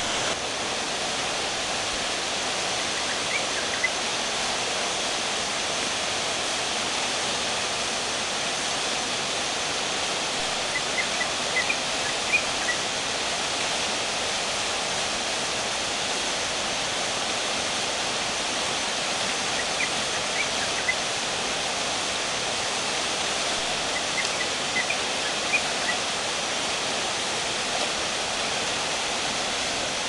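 A small waterfall cascading over rocks into a stream pool, making a steady, even rush of water. A few clusters of brief high-pitched chirps come through it now and then.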